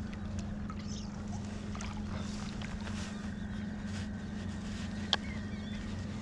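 Steady low drone of a distant boat motor running. A single sharp click about five seconds in.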